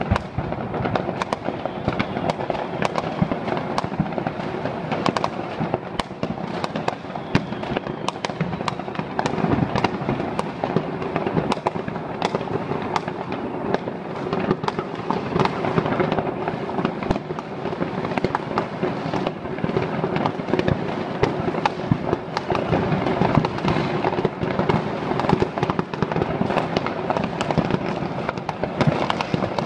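Many fireworks and firecrackers going off all over a city at once: a dense, unbroken barrage of bangs and crackles with no single burst standing out.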